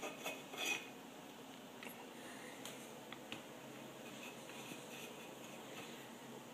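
A tin can holding lit candles knocks and scrapes lightly on a countertop as it is set down and moved in the first second, then faint room noise with a few small ticks as the can is handled.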